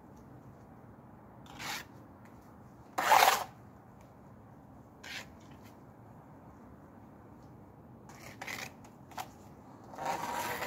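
Masonry trowel scraping and smoothing wet mortar on a brick: a handful of short scrapes, the loudest about three seconds in, with a longer scrape near the end.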